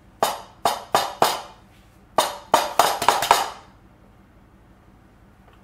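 A raw egg tapped against the rim of a mixing bowl to crack it: two runs of sharp knocks, four and then about five, each with a short ring.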